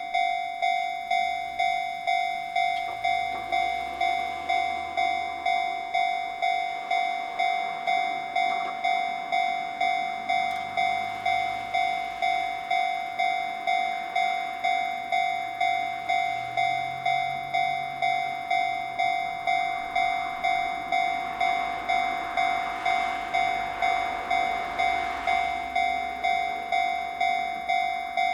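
Japanese level-crossing warning alarm ringing its "kan-kan" ding, evenly repeated about one and a half times a second. A Nishitetsu electric train passes through the crossing in the latter part, its running noise swelling and then fading under the alarm.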